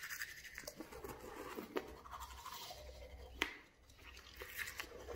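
Manual toothbrush scrubbing teeth in quick, irregular back-and-forth strokes, with a short pause about three and a half seconds in.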